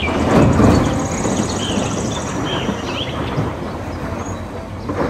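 A large loader bucket dumps a load of earth into a steel dump-truck bed: a loud rush of falling material, strongest about half a second in, then easing off. Under it runs a steady heavy diesel machinery hum, and birds chirp now and then.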